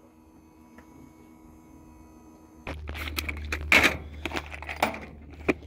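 Faint room tone, then about two and a half seconds in a steady low hum comes up with a run of sharp clicks and clatters: loose metal screws rattling in a plastic compartment organizer as a gloved hand picks through them.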